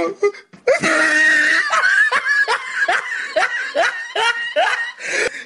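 High-pitched laughter: about a second in, a short held squeal breaks into a run of quick laughing bursts, two to three a second, each falling in pitch.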